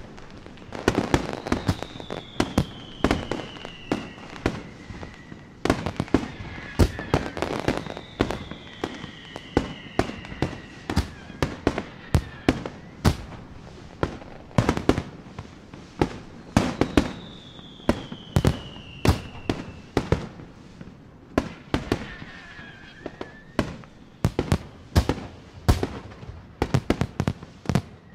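Fireworks display: aerial shells bursting in a rapid series of sharp bangs, often several a second, with a few long high whistles falling slowly in pitch above them.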